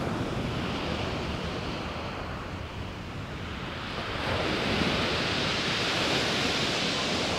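Rough surf breaking and washing on a shingle beach, with wind on the microphone; the wash swells louder about four seconds in.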